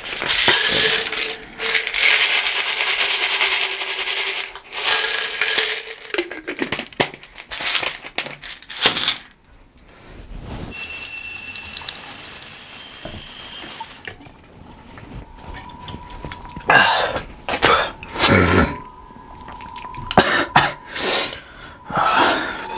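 Bathroom sink tap running as water is drunk from it, with rattling and knocks from handling a plastic pill bottle. A steady mid-pitched tone sounds through the later part.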